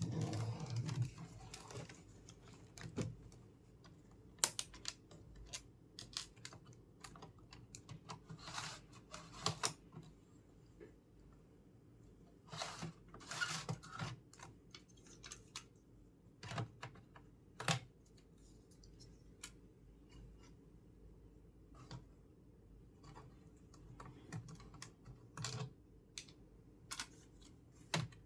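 Irregular light clicks and clatter of small hard parts being handled, coming in uneven clusters with a few louder knocks.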